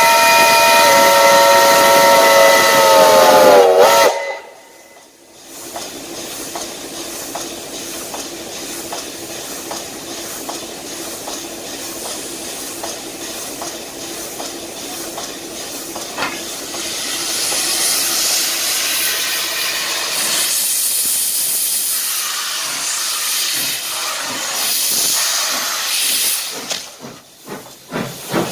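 Steam locomotive whistle sounding a chord of several tones, sagging in pitch and cutting off about four seconds in. Then steam hissing steadily from the locomotive, growing louder and harsher from about halfway as steam blows out around the cylinders. Short rhythmic puffs begin near the end.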